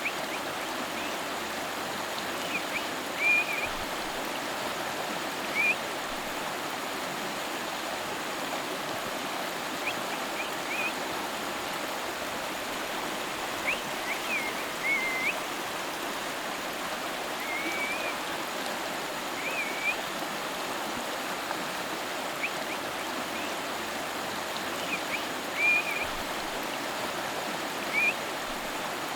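River water flowing and rushing steadily, with short high chirps every few seconds over it.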